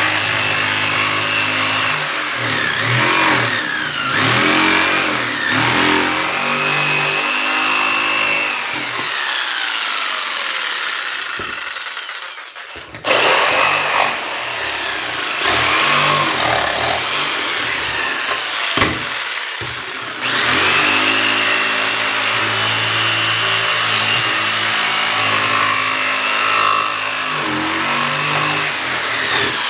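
Corded Ryobi jigsaw cutting through plywood, its motor pitch rising and falling as the cut goes on, with a short pause about twelve seconds in.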